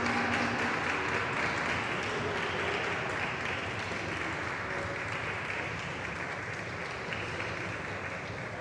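A small group applauding steadily and slowly fading. A ceremonial gong, struck just before, is still ringing at the start and dies away within the first second.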